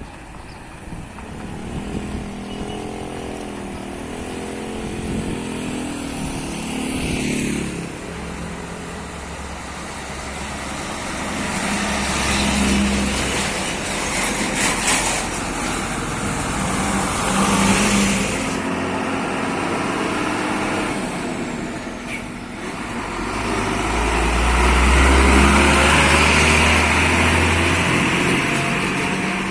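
Heavy Scania truck diesel engines running as the convoy moves past, the engine note rising and falling. It is loudest with a deep rumble about three-quarters of the way through, as a truck goes by close.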